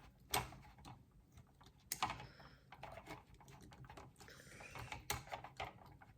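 Light plastic clicks and taps from handling a plastic model kit figure and fitting its blaster into the hand, a few sharp clicks spread out with soft handling noise between.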